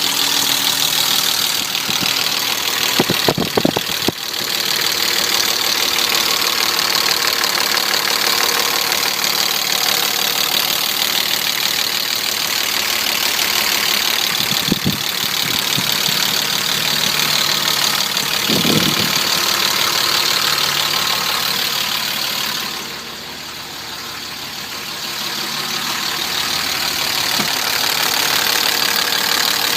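BMW E34's M50 straight-six engine idling with a knock from the engine, the fault being recorded. The level drops for a couple of seconds around twenty-three seconds in, then comes back.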